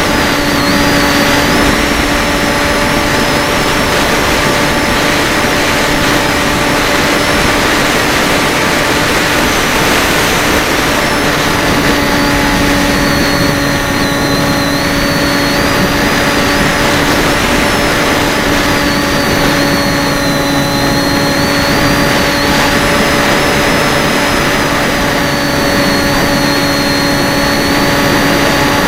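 FPV quadcopter's electric motors and propellers running in flight: a loud, steady buzzing hum with a higher whine that wavers up and down in pitch as the throttle changes.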